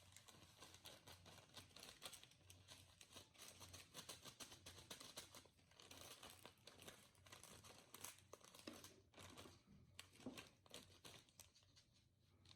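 Slime being squished and stretched by hand, giving a faint, irregular run of small crackles and sticky pops.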